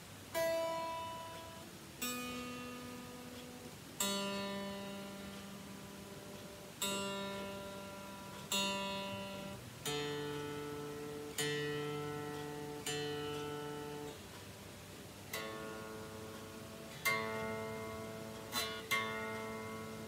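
Electric guitar being tuned: about a dozen single open strings plucked one at a time, each note left to ring and fade while the peg is turned. The pitch steps down from the higher strings to the lower ones.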